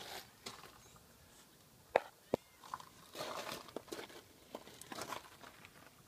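Footsteps crunching on gravel, mixed with rustling from a handheld phone being moved around, and two sharp knocks about two seconds in.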